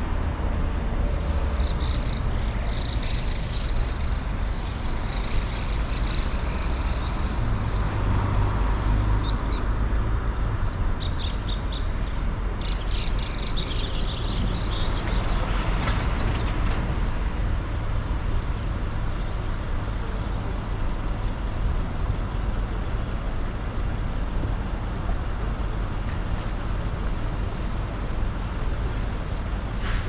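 A car's steady engine and road noise while driving, a constant low rumble. During the first half come several clusters of short, high chirps.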